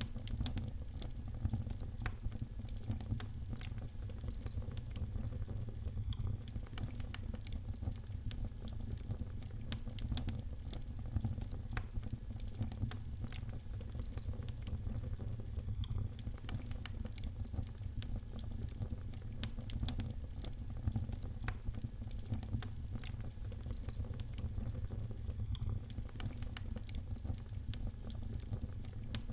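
Fire in a fireplace crackling, with frequent, irregular sharp pops over a steady low rumble.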